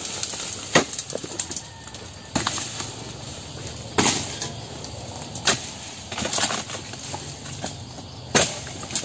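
Oil palm harvesting chisel (dodos) on a long pole chopping into the palm's frond bases and bunch stalk: several sharp chops at irregular intervals, one to two seconds apart, with dry rustling of fronds in between.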